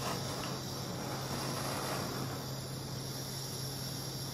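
Steady room background: a low hum under an even high hiss, with no distinct events.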